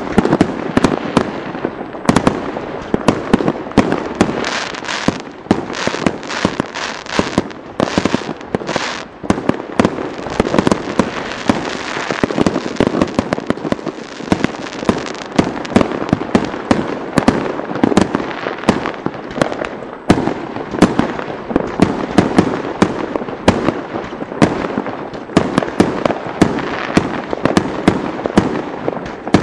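Fireworks display: a dense, unbroken barrage of bangs and crackles from aerial shells and rockets bursting overhead, several reports a second with hiss between them.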